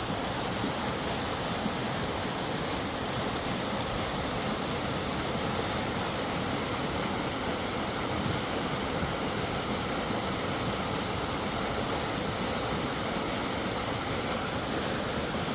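Mountain river water rushing steadily, a constant even roar of flowing water.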